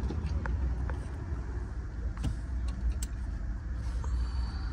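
A car's engine running with a steady low rumble, with a few light clicks over it.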